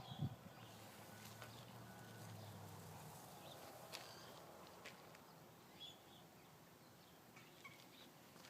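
Faint, scattered light taps and a few brief high chirps from a bird pecking at its own reflection in a mirror.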